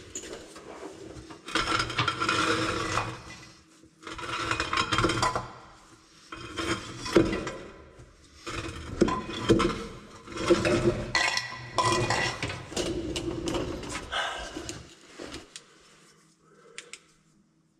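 Hand tools clinking and scraping against metal on the underside of a pickup truck, in irregular spells of a second or two, dying down near the end.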